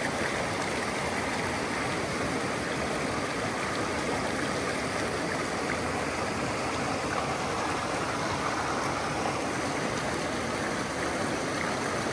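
Steady, even rush of flowing stream water.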